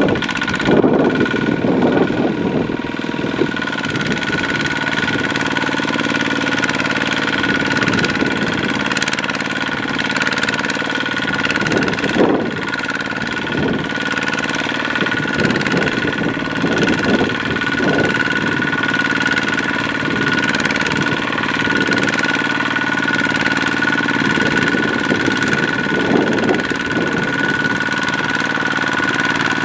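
Power tiller's single-cylinder diesel engine running hard and steadily as the rice-laden machine churns through deep mud, with brief surges every few seconds.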